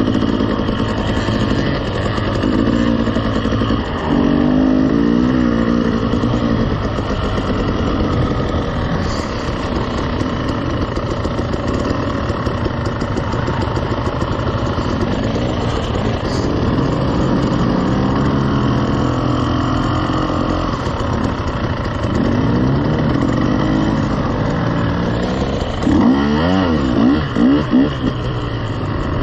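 Dirt bike engines running at low speed, the revs rising and falling with the throttle. Near the end there are a few quick, loud blips of the throttle.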